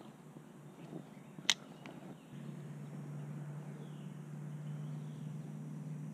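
Squirrel moving through the dry leaf litter: faint crackles, with a sharp snap about a second and a half in. About two seconds in, a steady low hum starts and runs underneath.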